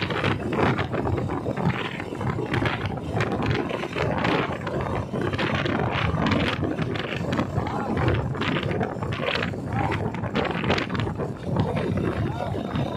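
Wind buffeting the microphone of a phone carried on a moving vehicle: an uneven rushing that swells and falls, over a steady low rumble from the ride.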